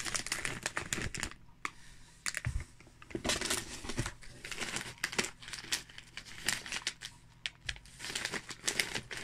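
Crinkling of plastic snack packets being handled, in irregular bursts of rustling with quieter gaps between.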